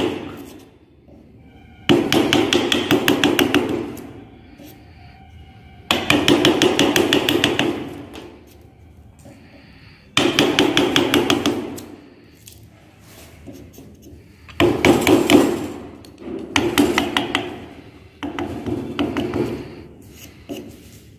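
Wooden mallet striking a firmer chisel in quick repeated blows, in about six bursts with short pauses between them. It is chopping out the waste wood between the saw cuts of a cross half lap joint.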